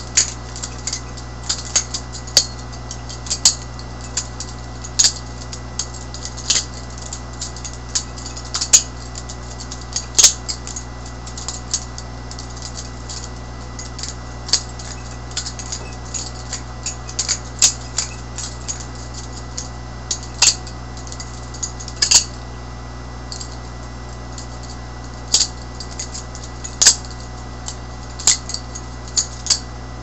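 A butterfly knife being flipped and spun in the hand, its handles clacking shut and open in sharp, irregular clicks, some in quick pairs, over a steady low hum.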